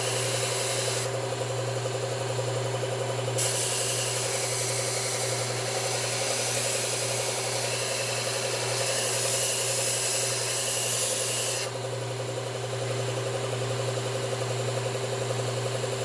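Belt sharpener motor running steadily while a steel garden-tool blade is ground against the abrasive belt: a short grinding pass at the start, then a longer hissing pass from about three and a half seconds in to near twelve seconds. The grinding is a touch-up of the blade's tip, whose last half inch was not cutting.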